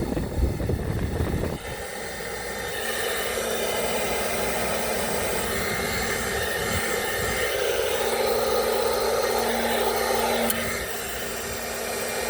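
Berta ionic hair dryer running on its warm, low setting with the pick attachment fitted: a steady blowing hiss over a faint motor hum. A low rumble is mixed in during the first second and a half, and the blowing grows a little louder for a few seconds after the middle before easing back.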